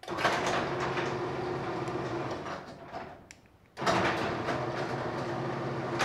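LiftMaster half-horsepower screw-drive garage door opener running as it moves the door on the remote's signal: a steady motor hum with rattle from the screw drive. It fades out about three seconds in, then starts again abruptly about a second later.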